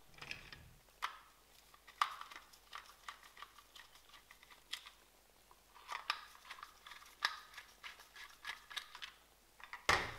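Faint, scattered clicks and taps of a 1/18 scale model car's body and plastic chassis being pressed together and handled, with light knocks on a wooden workbench. The sharpest click comes about two seconds in, and the clicks grow busier in the second half.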